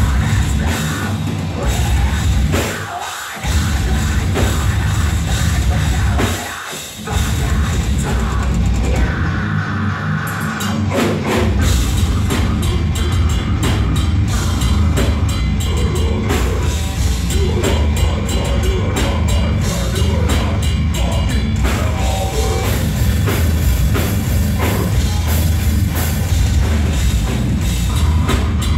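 Metal band playing live: distorted electric guitars and bass over a pounding drum kit. Two brief stops come about three and seven seconds in, then the music runs on without a break.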